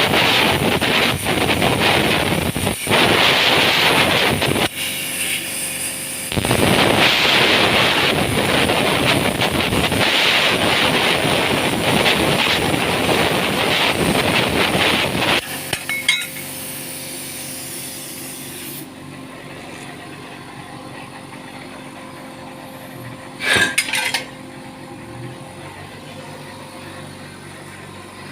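Power cutting machine's abrasive disc grinding through steel plate in two long passes, with a short break at about 5 seconds, stopping about 15 seconds in. A quieter steady hum follows, broken by a brief loud burst near 24 seconds.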